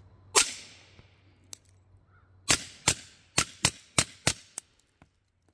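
Beretta 3032 Tomcat .32 ACP pistol firing through a SilencerCo Omega 9k suppressor, each shot a short sharp crack. One shot comes first, then after about two seconds a quick string of shots at about three a second.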